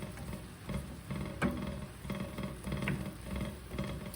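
Background music with a plucked guitar-like rhythm, with one sharp knock about a second and a half in.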